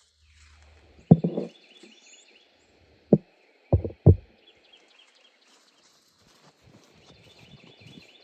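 Four sharp knocks: one about a second in, one about three seconds in, and two close together near four seconds, over a repeated high chirping in the background.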